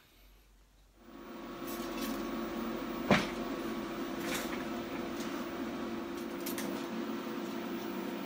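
TIG welding arc on steel tube: after about a second of quiet the arc strikes and runs as a steady hum and hiss, with one sharp click about three seconds in.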